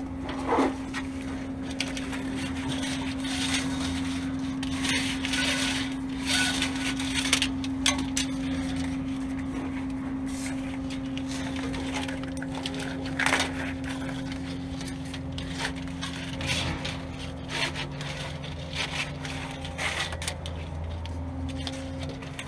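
Rustling, scraping and small irregular clicks of a wiring harness and hands being worked along a dump truck's frame, over a steady low hum.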